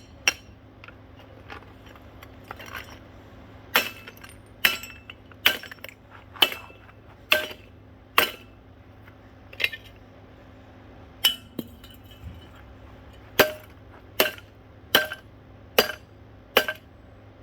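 Repeated hard strikes on a ceiling fan's glass light housing, about fifteen blows, each a sharp clink with a short ring. They come roughly one a second in runs, with a pause around the middle.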